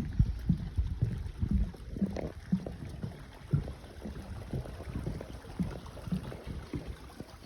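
Footsteps of a person walking on a woodland trail, about two dull steps a second.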